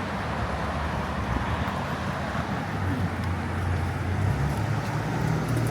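Road traffic passing on a city street: a steady noise of car engines and tyres on the road, with the low engine hum growing stronger about halfway through as vehicles come closer.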